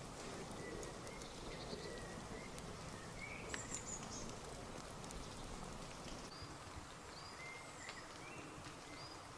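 Wood campfire crackling, with scattered sharp pops and snaps, while small birds give short whistled calls in the trees.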